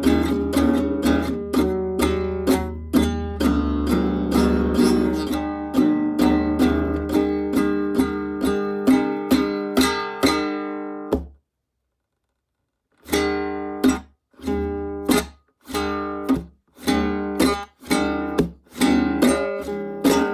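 Acoustic guitar strummed clumsily, chord after chord about twice a second. The strings go dead for a second or two about halfway through, then the strumming comes back choppier, with strums cut off short.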